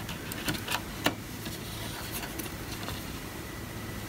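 Light clicks and taps as a RAM module (DIMM) is handled and pressed down into a memory slot on a Power Mac G4 Cube's board, several in the first second or so, then a faint steady low hum.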